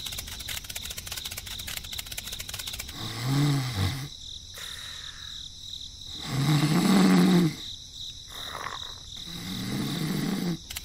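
Snoring sound effect: three slow, low snores, about three seconds in, in the middle and near the end, the middle one loudest.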